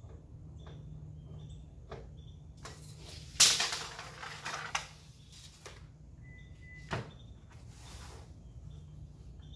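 Steel tape measure being handled on pine boards: a sudden loud rasping rush a third of the way in that fades over about a second, then a sharp snap about seven seconds in, typical of the blade retracting into its case.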